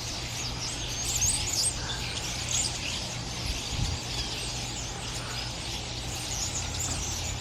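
A large flock of birds calling all at once: a dense chatter of many overlapping high chirps and squeaks.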